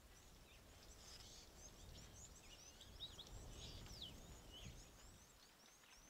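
Faint chatter of small birds: many short, quick high chirps and twitters, over a low background rumble that swells in the middle.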